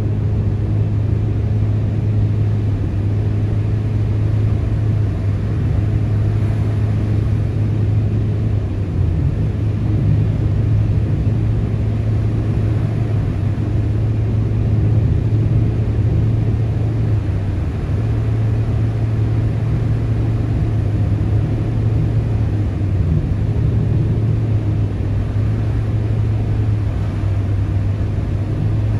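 Steady low rumble of road and engine noise inside a car cruising on a slushy, snow-covered expressway.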